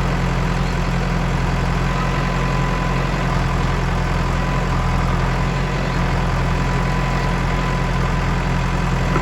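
Heavy diesel engine running steadily at an even speed, with no revving.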